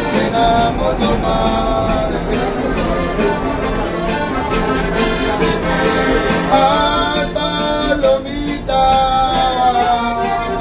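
Live Mexican norteño-style music: a diatonic button accordion and a strummed guitar played together, with a man singing over them.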